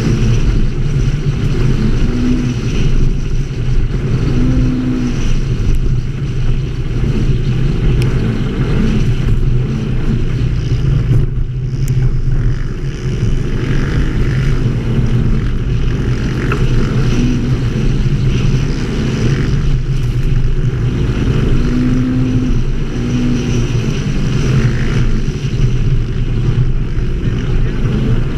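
ATV engine running steadily as the machine is ridden along, heard from on board, with brief rises in revs now and then.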